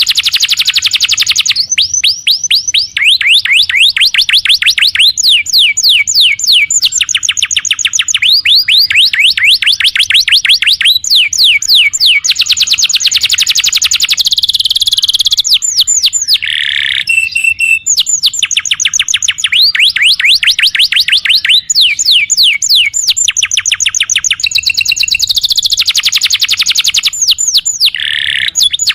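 Domestic canary singing vigorously and without a break: long rolling trills of rapid repeated high notes, switching from one trill to the next every second or two, with a lower buzzy phrase about halfway through and again near the end.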